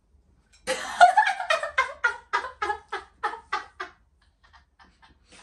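A person laughing hard: a sudden burst about a second in, a quick even run of about a dozen 'ha' pulses that fades away into faint chuckles.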